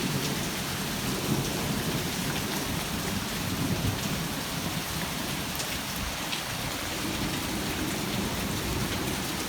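Heavy thunderstorm rain pouring steadily, with a low rumble of thunder underneath.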